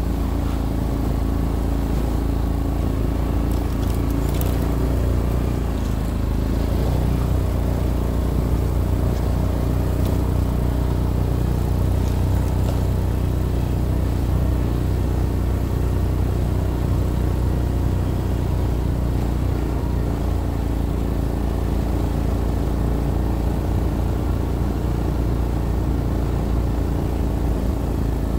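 Off-road vehicle engine running steadily at an even pace while breaking trail through fresh snow.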